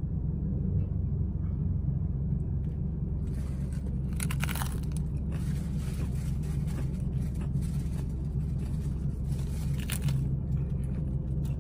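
A hard-shell taco crunching as it is bitten, about four and a half seconds in and again near ten seconds, over the steady low hum of an idling truck engine.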